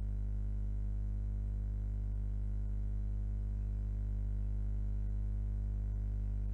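A steady, unchanging low hum made of several low pitches held together.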